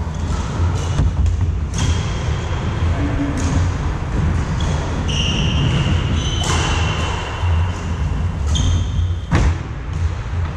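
Badminton rally: racket strikes on the shuttlecock every second or two and short shoe squeaks on the wooden court, over a steady low rumble.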